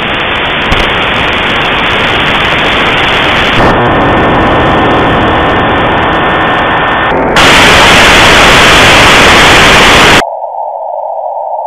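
Shortwave receiver static from a WebSDR tuned around 11.2 MHz in AM mode: a loud steady hiss, with a faint steady whistle in the middle. About seven seconds in the hiss turns brighter and louder. About ten seconds in it suddenly narrows to a thin, duller band of hiss as the receiver is switched to CW with a narrow 0.4 kHz filter.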